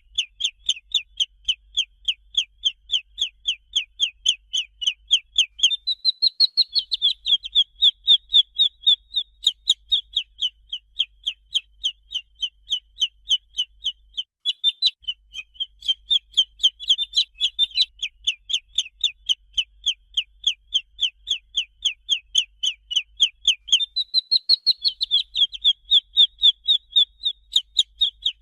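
Domestic chicken chick peeping without pause: a fast run of short, high, downward-slurred peeps, about four a second.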